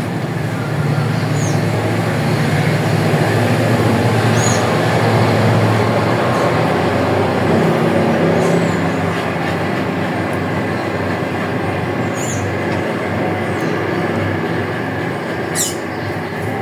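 Loud, steady rumbling noise, with a few short, high bird chirps over it at intervals of a few seconds.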